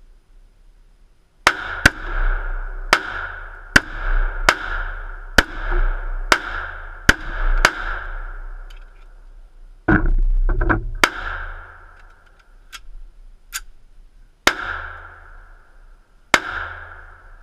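A 1911 pistol in .45 ACP firing a quick string of about nine shots, each echoing briefly. A loud rustle of handling noise follows about ten seconds in, then a few more single shots, spaced a couple of seconds apart.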